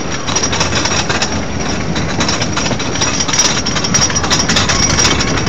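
Great American Scream Machine wooden roller coaster train rattling along its track, heard from a rider's seat: a steady, dense clatter with many quick clacks.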